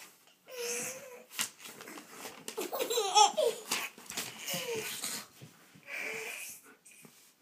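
A baby laughing in several separate bursts, the loudest and longest about three seconds in, with short sharp clicks between the laughs.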